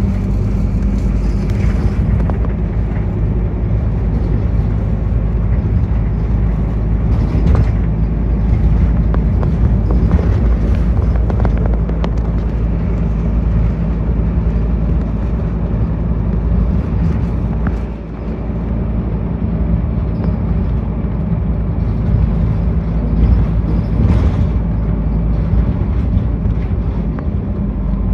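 City route bus under way, heard from inside the passenger cabin: a steady engine drone with road noise, easing briefly about eighteen seconds in.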